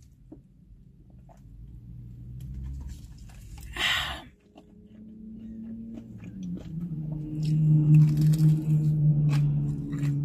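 Close-miked mukbang eating of Popeyes fried chicken: crunchy bites and chewing. There is a short sharp noisy burst about four seconds in, and a steady low hum through the second half.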